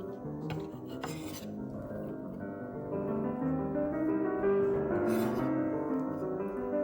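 Soft piano background music, with a few brief clinks and scrapes of kitchen utensils on dishes.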